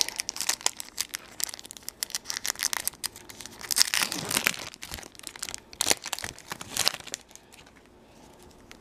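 An O-Pee-Chee baseball card pack's wrapper being torn open and crinkled by hand: a rapid crackling with louder bursts about four and six seconds in, dying down near the end.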